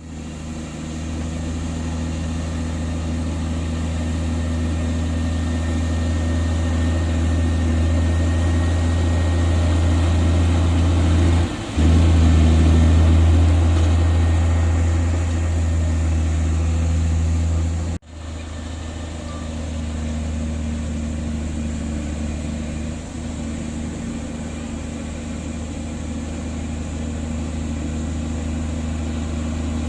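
Heavy diesel engine of earthmoving equipment running steadily with a deep low hum. The sound cuts out abruptly for an instant about twelve seconds in and again about eighteen seconds in.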